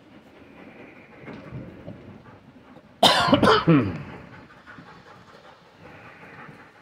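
A man coughing close to the microphone: two loud, harsh coughs about half a second apart, about three seconds in.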